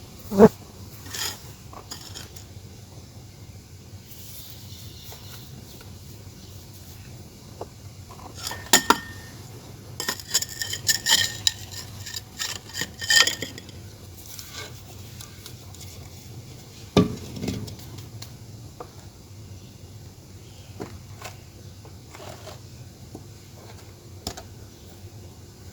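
Hard clay pieces clinking and knocking together: a few single sharp clicks, with a busy clatter from about ten to thirteen and a half seconds in.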